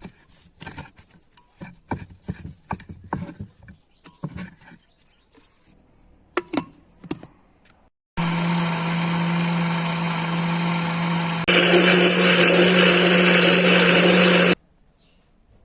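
Scattered clicks and knocks of kitchen handling, then an electric blender starts about halfway in and runs steadily. It steps up to a louder, higher speed a few seconds later and cuts off suddenly near the end.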